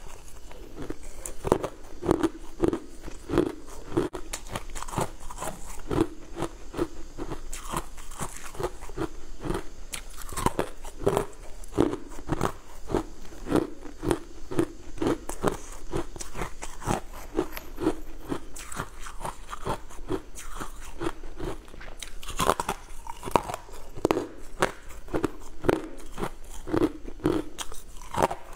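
Close-up crunching of powder-coated frozen ice pieces being bitten and chewed, a steady run of crisp crunches, about two or three a second.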